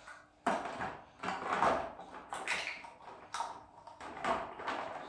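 Baby bottle being washed in a basin of water with a long-handled bottle brush: a series of irregular splashing and scrubbing swishes as the brush is worked inside the bottle.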